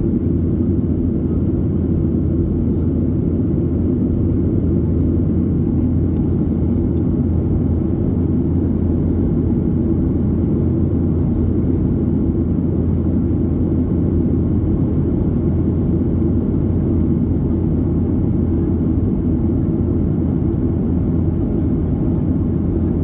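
Steady cabin noise inside a Boeing 737-800 in flight: the low, even drone of its CFM56-7B jet engines and the airflow over the fuselage.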